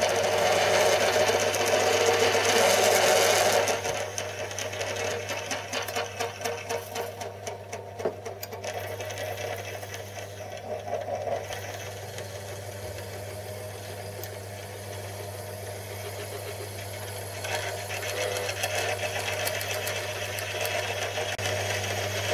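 Small metal lathe running while a 12 mm twist drill bores through an aluminium casting in the chuck: a steady motor hum under the cutting noise of the drill. The cutting is loudest for the first few seconds, eases off, then grows louder again near the end.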